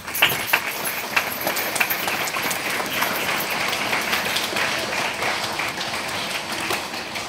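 A hall full of schoolchildren applauding: dense clapping that starts suddenly and eases off slightly near the end.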